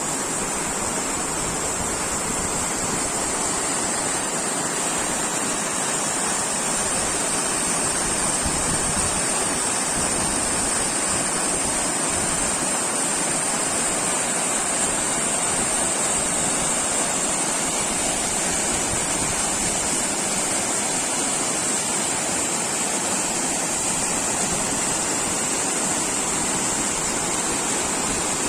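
Waterfall on Mt. Shari's mountain stream, water pouring and rushing steadily.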